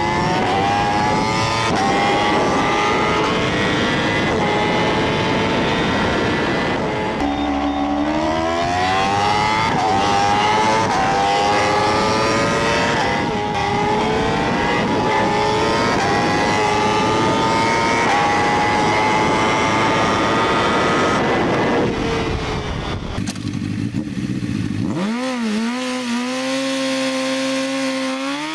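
Motorcycle engine accelerating hard, its pitch climbing and dropping back again and again as it shifts up through the gears, over the noise of the ride. Near the end the ride noise falls away and the engine holds a steadier lower note with a few short blips of the throttle.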